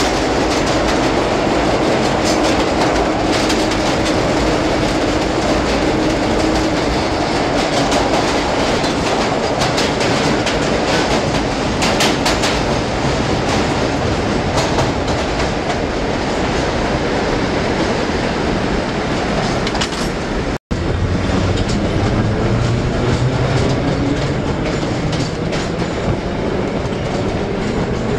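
Vintage 1930s New York City subway train running through a tunnel, heard from inside the car: a steady loud rumble with wheels clattering over the rail joints. It cuts out for an instant about two-thirds of the way through, after which a low whine climbs in pitch.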